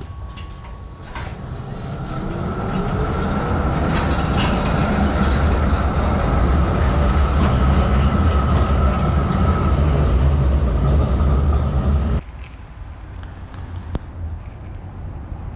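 Tram passing on street track: a loud rumble of wheels and running gear that builds over the first couple of seconds, with a faint rising whine and a steady high tone over it. It cuts off suddenly about twelve seconds in, leaving quieter street sound.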